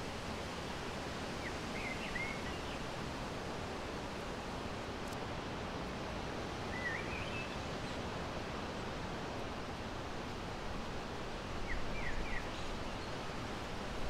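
Outdoor ambience: a steady hiss of background noise with short bird chirps three times, about five seconds apart. A brief low rumble comes near the end.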